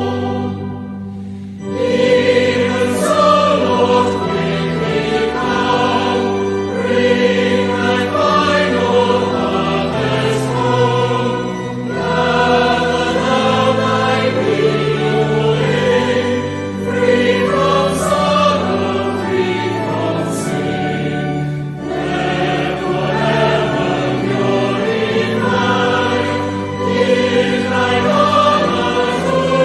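A choir singing a hymn, in phrases of held notes; a phrase breaks off briefly about a second in before the next begins.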